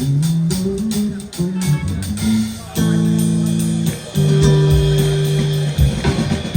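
Live jam on electric guitar and bass: a moving line of plucked low notes, then a held chord and a long sustained low note, with busier playing picking up near the end.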